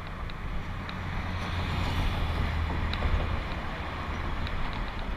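Wind buffeting the microphone over a steady low rumble that swells in the first few seconds, with a few faint ticks.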